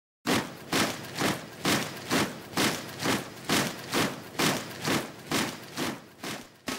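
A steady beat of sharp, quickly decaying hits, a little over two a second, that starts and stops abruptly.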